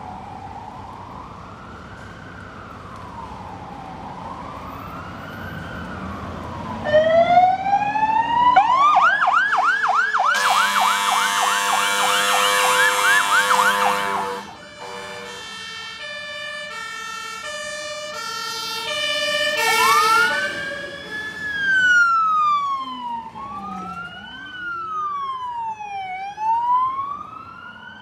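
Sirens of several fire engines setting off on an emergency run. An electronic siren wails slowly up and down, then switches to a fast yelp. About ten seconds in, a very loud Grover air horn blasts for about four seconds. It is followed by a two-tone Martin-Horn alternating high and low. Near the end several wailing sirens overlap as the vehicles pass.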